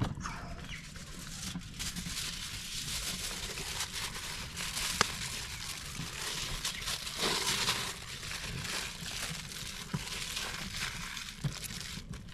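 Aluminium foil crinkling and crackling steadily as it is wrapped around a pan's plastic handle, with a sharp knock at the very start and a louder patch of crumpling about seven seconds in.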